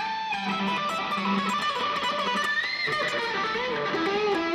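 Electric guitar playing a lead line of sustained notes, several of them bent up and down in pitch.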